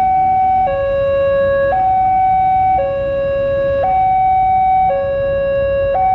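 Railroad level-crossing warning alarm sounding two electronic tones, one high and one low, switching back and forth about once a second. It means the crossing is closed for an approaching train.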